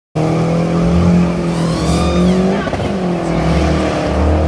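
A car's engine held at high revs while its tyres squeal in a burnout or drift, cutting in suddenly; the revs dip briefly and climb again about two and a half seconds in.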